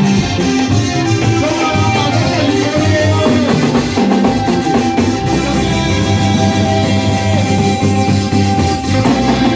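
Band music with a drum kit and guitar playing continuously.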